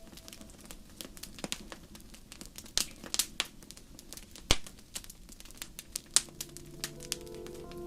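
Burning logs crackling and popping in a fireplace: irregular sharp snaps of varying strength over a soft hiss, with the loudest pops about three, four and a half, and six seconds in. A soft, steady music pad fades back in near the end.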